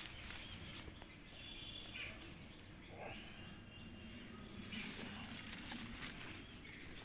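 Faint outdoor ambience, with leaves rustling as plant branches are handled and a few faint bird chirps.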